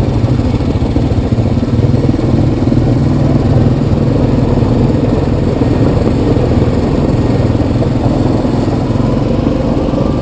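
Yamaha Kodiak 700 ATV's single-cylinder four-stroke engine running steadily.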